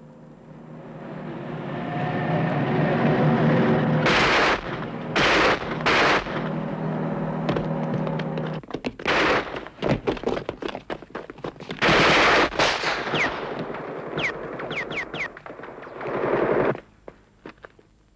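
Battle sound on a war film's soundtrack: a low steady drone fades in and cuts off about halfway through. Over it come loud blasts, several in the first half and another near the end, with bursts of rapid automatic gunfire between them and a few short falling whistles.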